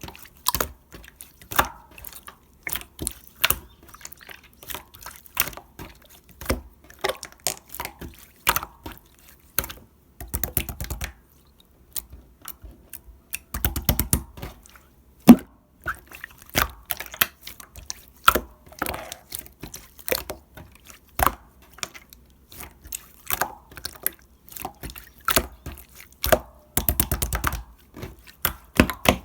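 Jiggly slime being squeezed, stretched and poked by hand, making irregular wet clicks and squelches.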